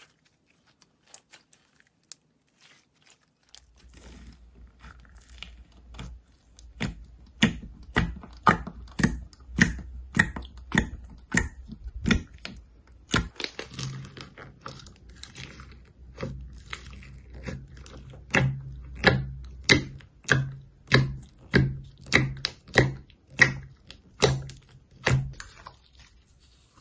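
Fingers pressing and squishing slime topped with clay slices, making a regular series of sharp wet clicks and pops, about two a second, over a low steady hum. It starts with a few faint clicks and grows louder after about six seconds.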